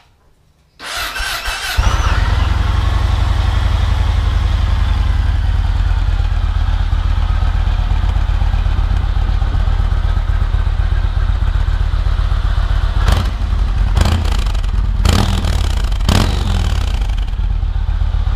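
Yamaha MT-01's big air-cooled V-twin turned over on the electric starter, catching about a second in and then idling steadily, with a few short sharp noises about two-thirds of the way through. The owner says this engine noise, which can make you think something is wrong, is normal for the MT-01.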